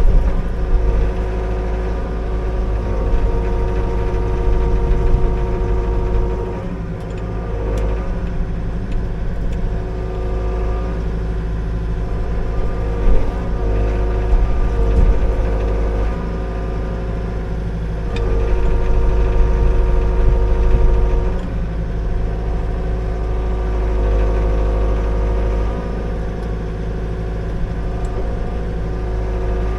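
Liugong 9051F mini excavator's diesel engine running while the machine works, its note and loudness shifting every few seconds as the hydraulics take load, with a brief knock partway through.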